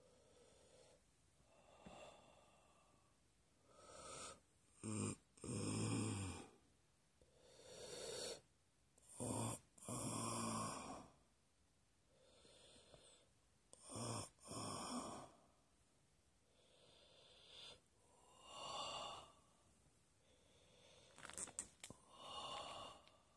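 A person breathing heavily close to the microphone: a loud breath every one to two seconds, with a few sharp clicks near the end.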